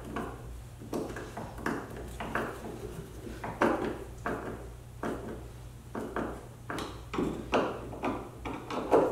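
Hand screwdriver driving screws into a plastic kayak mounting bracket, a short scraping creak with each twist, repeated at irregular intervals.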